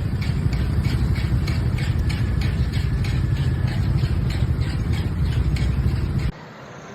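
A loud low rumble with a rattle repeating about three times a second, cutting off abruptly near the end.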